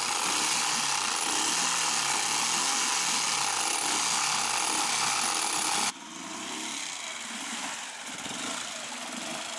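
Small Mariner outboard motor running, its cooling water flowing again after a new water-pump impeller was fitted. About six seconds in the sound drops suddenly and the engine is heard fainter, from farther off as the dinghy moves away.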